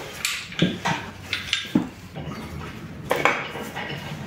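Metal engine parts and hand tools clinking and knocking as components are taken off a diesel engine: a string of irregularly spaced sharp clinks.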